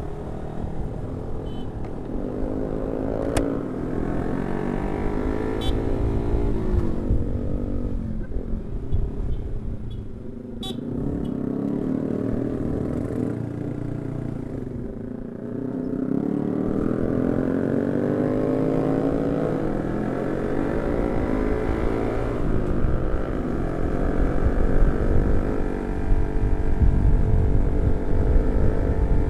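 Yamaha R15 V3 motorcycle's single-cylinder engine running at speed, its pitch rising and falling over and over as the rider opens the throttle and shifts gears, with wind rumble on the microphone.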